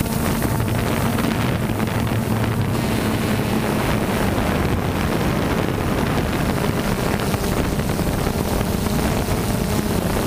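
DJI Phantom 2 quadcopter's motors and propellers humming steadily, with wind buffeting the microphone. The pitch drops a few seconds in and climbs back near the end.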